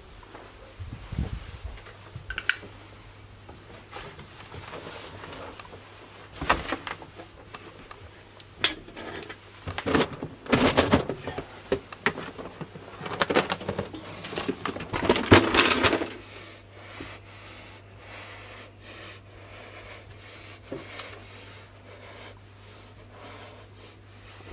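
Rummaging through a cupboard of clothes and gear: rustling with clinks and clatters of hard objects, busiest in the middle and sparser near the end. A steady low hum runs underneath.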